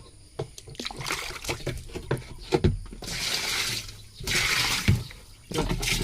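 Water splashing and pouring while a washing machine drain pipe is cleaned out, in two louder gushes about three and four and a half seconds in, with scattered knocks and clicks around them.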